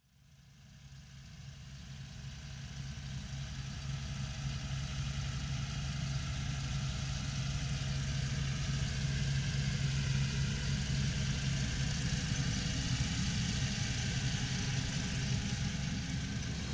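A farm machine's engine running steadily, fading in over the first few seconds, with a low steady hum under a broad hiss.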